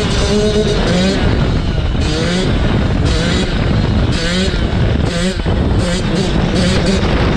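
Dirt bike engine running hard, its pitch climbing again and again, about once a second, as it revs up and drops back.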